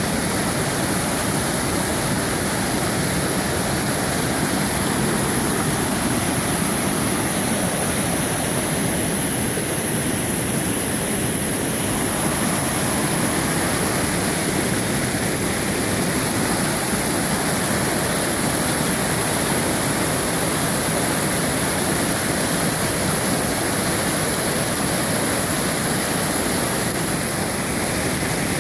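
A large waterfall, its water rushing steadily with no break.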